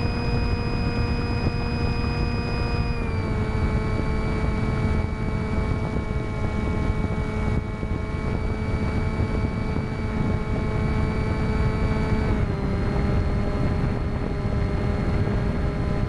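Electric motor and folding propeller of an FX-61 flying wing, heard from on board: a steady whine over wind rush on the microphone. The pitch steps down about three seconds in and again about twelve seconds in as the throttle is eased back.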